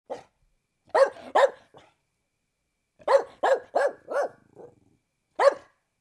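Pit bull barking: a pair of barks, then a run of four, then a single bark near the end, with a few fainter barks between.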